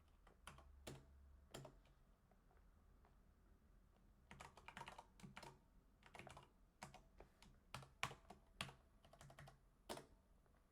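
Faint typing on a computer keyboard: irregular keystrokes, with a quick run of keys a few seconds in and more scattered clicks after.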